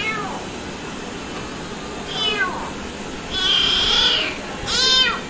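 Young orange kitten meowing four times, high thin calls, the longest and loudest about three and a half seconds in.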